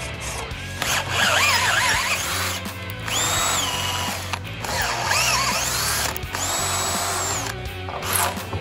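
Cordless drill driving a thread tap into pre-drilled holes in a steel frame tube. Twice, the motor labours with a wavering pitch, then spins up to a steady high whine.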